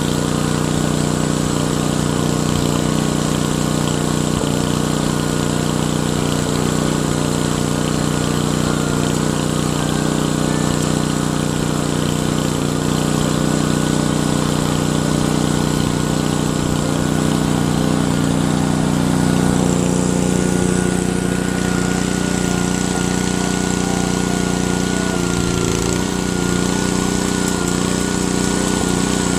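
Engine of the job-site equipment running steadily at a constant speed, with a slight shift in pitch about two-thirds of the way through.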